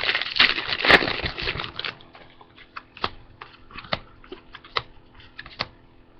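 Foil trading-card booster pack being torn open and crinkled for about two seconds. Then the cards inside are flicked through one by one, giving a run of light, separate clicks and snaps.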